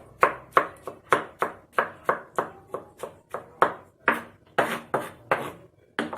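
Knife chopping peeled tomatoes finely, with quick, even strikes about three a second.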